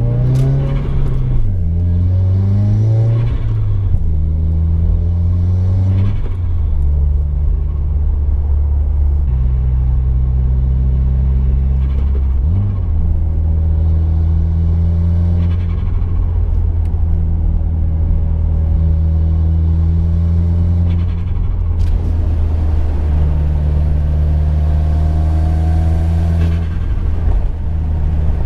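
The turbocharged FA20 flat-four engine of a 2015 Subaru WRX running as the car is driven. Its pitch rises and falls a few times in the first four seconds, then holds steady with a few sudden changes in pitch.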